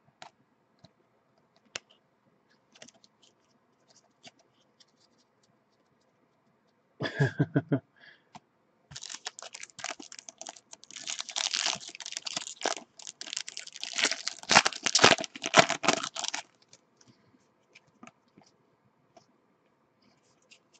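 Trading-card pack wrapper being torn open and crinkled for about seven seconds, a dense crackling rustle, after scattered soft clicks of cards being handled and a short loud rustle about seven seconds in.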